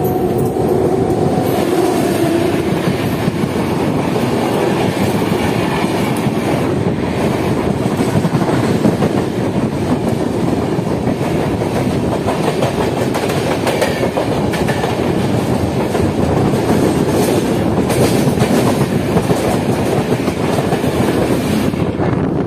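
Dibrugarh Rajdhani Express coaches rushing past at close range on the adjacent track, heard from the open door of a moving train: a loud, continuous rush of air with the clickety-clack of wheels over rail joints.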